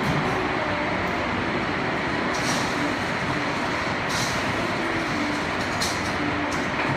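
Heavy rain falling steadily as a dense, even hiss, with three brief brighter splashes of higher sound.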